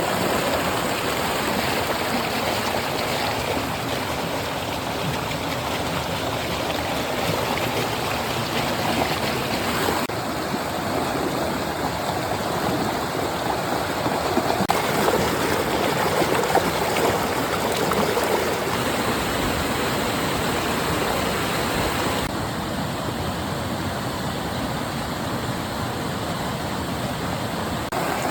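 Flowing stream water, a steady rushing and gurgling, whose tone changes abruptly several times.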